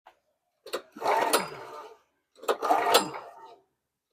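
Recoil pull-starter of a Honda GX270 engine being pulled repeatedly, about every second and a half. Each pull opens with a sharp click and a whir that falls in pitch as it coasts down, and the engine does not fire. The engine is being cranked to test for spark.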